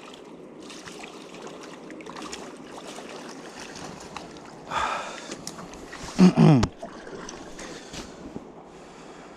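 Steady rush of river water with some wind on the microphone. A brief noisy burst comes about five seconds in, and a short voice-like sound with a falling pitch follows just after six seconds.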